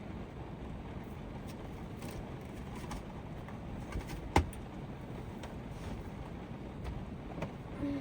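Heavy typhoon rain drumming steadily on the roof of a Toyota HiAce van, heard from inside, with scattered drip ticks and one sharp click about halfway through.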